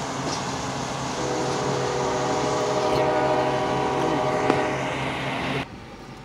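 EMD GP38-2 diesel locomotives passing at a grade crossing with a steady rumble; about a second in, a locomotive horn sounds one long steady blast lasting about three and a half seconds. Near the end the sound drops off sharply.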